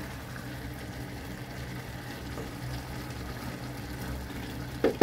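Steady low hum and hiss of a pot of fiddlehead fern curry cooking on a gas stove while it is stirred with a wooden spatula. A few sharp knocks come near the end.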